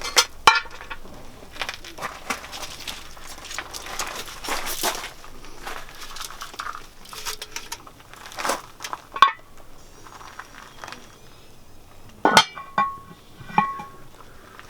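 Cookware and cooking utensils clinking and knocking in irregular, scattered strikes, with a couple of ringing metallic clinks near the end.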